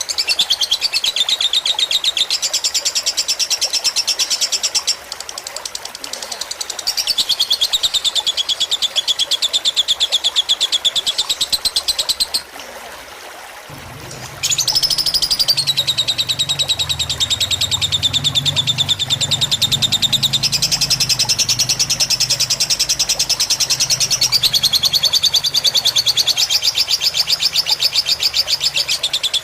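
Lovebird singing long, very fast chattering trills (the 'ngekek' fighter song) in bouts several seconds long. The trills shift pitch between bouts, with a short break about 5 s in and a longer pause about halfway through. Trickling water runs beneath.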